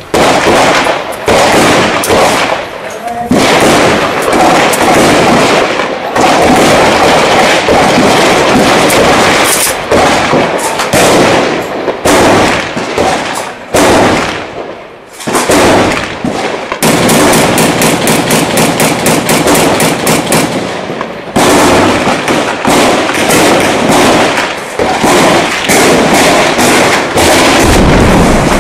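Gunfire in an urban firefight: repeated rifle shots and bursts of automatic fire, with a long rapid burst about two thirds of the way through. A deep thud near the end.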